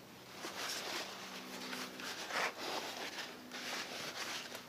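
A blue shop towel wiping the lens of an auto-darkening welding-helmet cartridge: irregular rubbing and swiping strokes, the strongest about halfway through, over a faint steady low hum.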